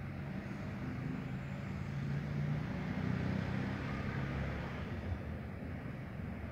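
Low engine rumble of a motor vehicle, swelling to its loudest about halfway through and then easing off.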